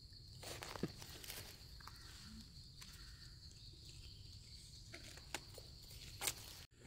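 Faint footsteps and rustling in dry leaf litter, with a few scattered crackles and snaps, over a faint steady high hum.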